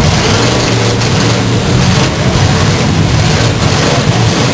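Demolition derby cars' engines running together in a loud, steady mass of engine noise as the cars shove and grind against each other.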